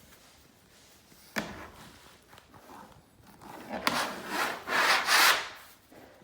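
Wallpaper spatula scraping and rubbing across glued wallpaper, pressing excess glue out from underneath. A sharp tap about a second and a half in, then several strokes that get louder near the end.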